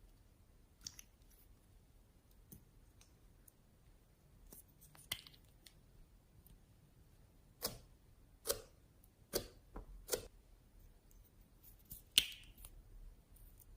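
Slime being worked by hand, giving faint, scattered sharp clicks and pops, a handful of them, most in the second half.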